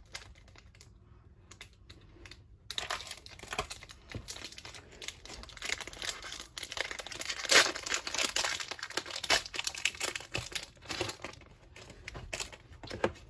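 Foil wrapper of a Pokémon trading card booster pack being torn open and crinkled: a run of crackling and rustling that starts about three seconds in and is loudest near the middle.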